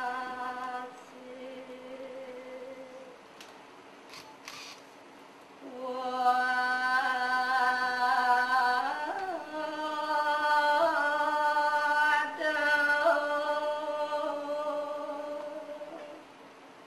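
A single voice singing a slow chant in long, steady held notes. It drops to a faint hum after the first second, swells again about six seconds in with a few bending ornaments in pitch, and fades near the end. A few soft clicks come around four seconds in.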